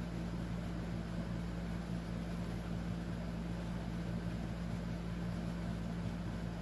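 Steady low mechanical hum with an even hiss behind it, unchanging throughout: room background noise from a running motor or appliance.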